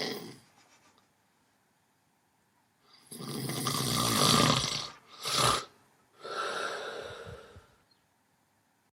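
Snoring: the end of one snore, then after a pause a long loud snore, a short sharp snort, and a softer snore with a faint whistle.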